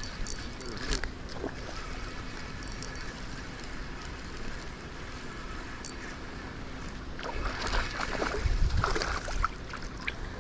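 Wind on the microphone over moving river water, with a stretch of water splashing about eight seconds in.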